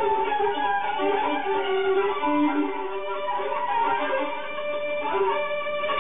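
Solo violin playing a free improvisation, several held notes overlapping and shifting in pitch.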